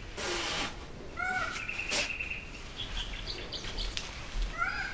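A bird calling: short arched calls about a second in and again near the end, with a held steady note between them. A brief scuffing noise at the start and a sharp click about two seconds in.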